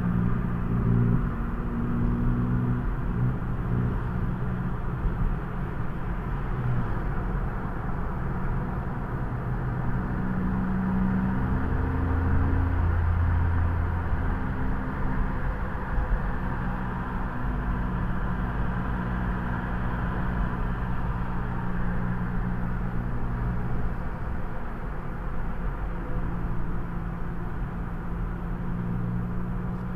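Car engine and road noise heard from inside a cruising car. There is a steady low engine hum whose pitch holds and then shifts several times, over an even rush of tyre and road noise.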